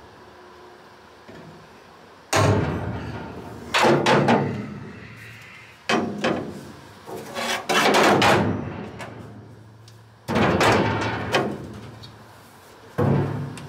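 A string of sharp metallic knocks and clanks, each ringing out and fading, from steel foot plates and tools striking the bare steel floor pan of a stripped car shell.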